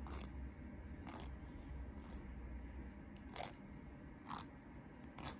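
Emery-board nail file scraping in short downward strokes against the free edge of a fingernail, about five separate strokes, filing off overhanging nail polish.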